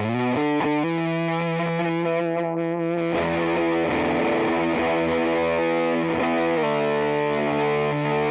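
Les Paul electric guitar on humbucker pickups played through a Sola Sound Pro MkII Tone Bender fuzz pedal: distorted, sustained notes and chords ringing out, changing a few times, with a short wobbling bend about two and a half seconds in.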